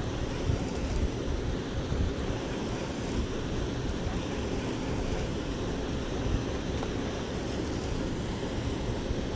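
Steady rushing outdoor noise with a low rumble that rises and falls slightly.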